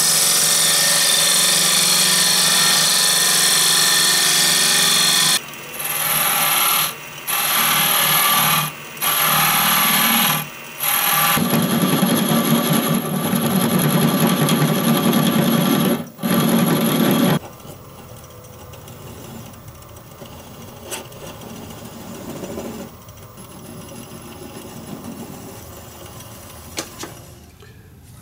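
Wood lathe spinning a small sycamore natural-edge bowl while a turning tool cuts away the waste at its foot: a loud hiss of the cut, then a few short cuts with pauses, then another long cut. For the last ten seconds or so the cutting stops and only a much quieter running sound is left.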